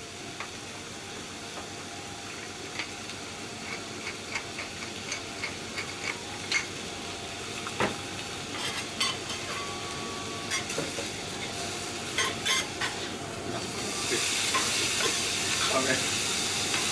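Chateaubriand fillet steak sizzling on a hot teppanyaki griddle, with scattered light clicks and taps. About fourteen seconds in, the sizzle grows louder as sliced onions go onto the hot plate and a steel spatula works them.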